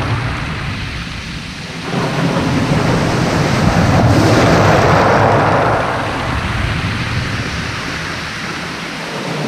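Waves breaking on a shingle beach, the surf swelling loudest from about two to six seconds in as a wave crashes and washes up over the pebbles, then easing.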